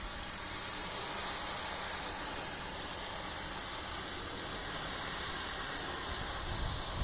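Harvesting machinery running steadily with a constant hiss and no breaks or strokes.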